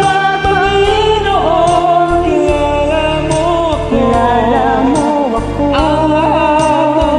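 A man and a woman singing a slow Tagalog worship song together as a duet, over a karaoke backing track with a light, steady beat.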